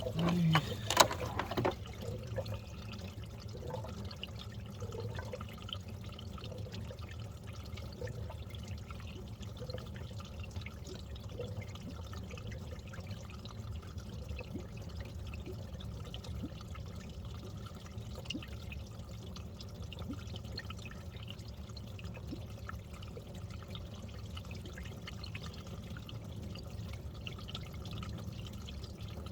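A few metallic clanks about a second in, then engine coolant trickling and dripping steadily as it drains out during a thermostat replacement.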